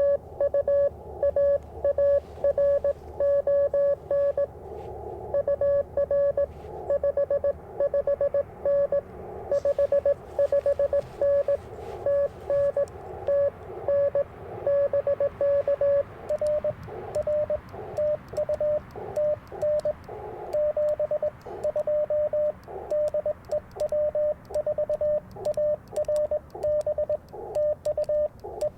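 Morse code (CW) from an Icom IC-705 transceiver: a steady tone of about 600 Hz keyed on and off in quick dot-dash patterns during a ham radio contact, over a band of receiver hiss.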